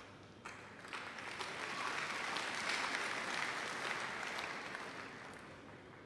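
Congregation applauding: clapping starts about half a second in, swells to a peak midway, then fades away near the end.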